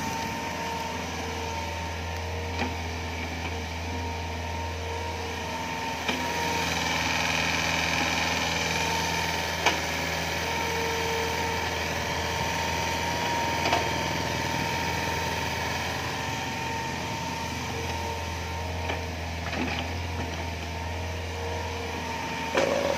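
Hitachi Zaxis 48U mini excavator working its arm and bucket, its four-cylinder Yanmar 4TNV88 diesel running steadily under a steady high whine, with a few short knocks along the way. This is a working test of the machine after a control valve repair.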